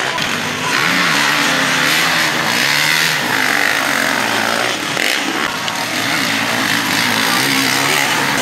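Several motocross bike engines revving, their pitch rising and falling with the throttle as the bikes accelerate through the corners.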